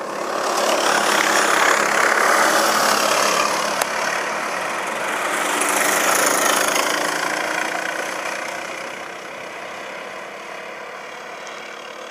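Several racing go-kart engines running hard as the karts pass by in a group, swelling in loudness twice, around two seconds in and again around six, then fading away as they leave.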